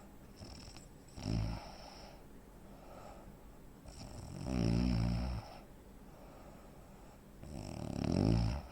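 A heavy-set man snoring heavily in his sleep: three loud snores about three seconds apart, the first short and the next two longer, with softer breathing between them. The snoring is that of a man with sleep apnea.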